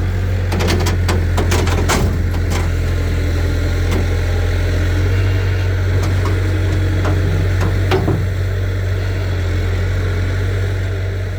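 A vehicle engine running steadily at a low, even hum, with a few sharp metallic clanks and rattles in the first few seconds and again about eight seconds in.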